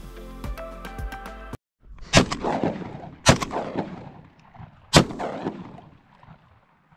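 Background music for the first second and a half, then three shotgun shots at flying ducks, about a second and then a second and a half apart. Each shot is followed by a long fading echo.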